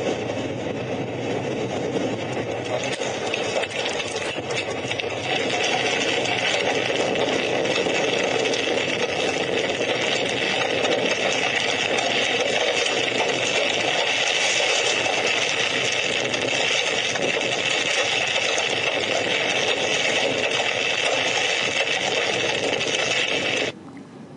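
Loud, steady rushing noise of storm wind from field footage of a tornado, with a low rumble underneath. It stops abruptly near the end.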